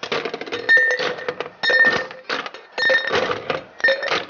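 Ice cubes scooped from a metal ice bucket and dropped into a glass, clattering and clinking in bunches about once a second, with a brief ringing after several of them.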